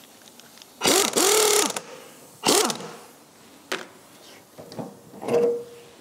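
Impact wrench on a car's wheel nuts, run in four short bursts to loosen and spin them off for wheel removal. Each burst is a motor whine under rattling, and the longest lasts about a second.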